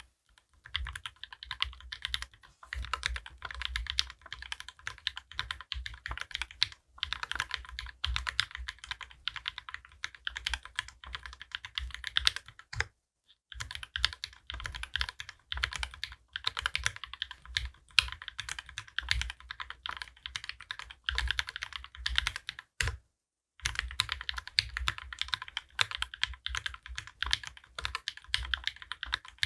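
Fast continuous typing on a custom mechanical keyboard with linear switches (Gateron Ink Black housings, UHMWPE stems lubed with Krytox 205g0), a brass plate and GMK keycaps, dense keystrokes with brief pauses about 7, 13 and 23 seconds in.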